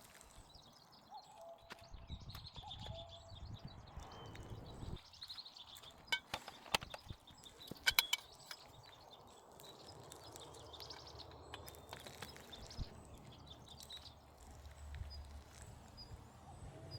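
Outdoor rural ambience: birds chirping on and off over a low rumble, with a cluster of sharp clicks or knocks about six to eight seconds in.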